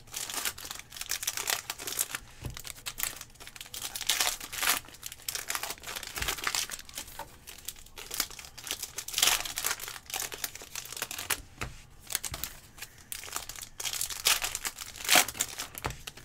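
Foil wrapper of a Panini Select football card pack crinkling and tearing as it is ripped open and handled, in irregular rustles with louder crackles about nine and fifteen seconds in.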